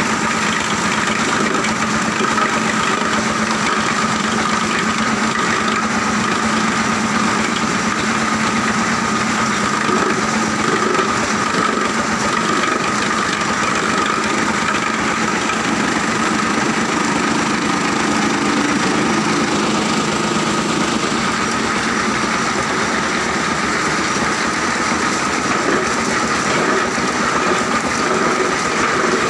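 Plastic grinding and washing machinery running steadily: a machine-driven washing line with rotating shafts in the tanks and a chain conveyor. It makes a continuous hum with a steady whine above it.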